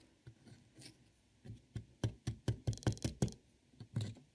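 A small excavation tool chipping and scraping at a kit's plaster block. It is sparse at first, then a quick run of taps and scrapes starts about two seconds in, with another few near the end.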